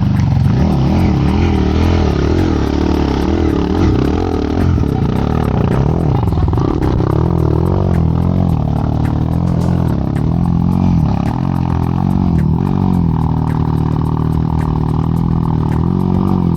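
Off-road dirt bike engine running and being revved, its pitch rising and falling with the throttle without a break.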